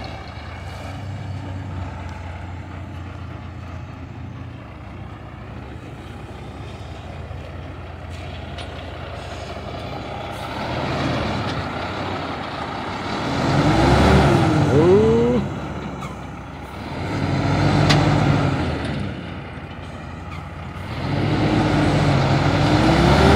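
Old truck's engine labouring and revving up and down, swelling three times in the second half as it strains to pull out of a muddy, slippery exit.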